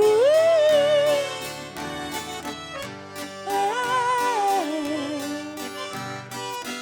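Sertanejo band playing an instrumental break between verses of a slow song: a lead melody with sliding notes over the band's accompaniment.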